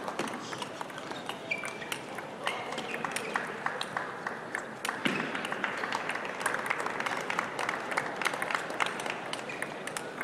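Table tennis ball clicking off bats and table during a rally, then audience clapping from about five seconds in, with crowd murmur underneath.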